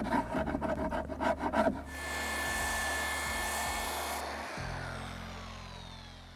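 Quick rhythmic rubbing strokes on wood, about four or five a second, for the first couple of seconds. Then a steady electric whirring with a whine in it, which winds down near the end with falling pitch.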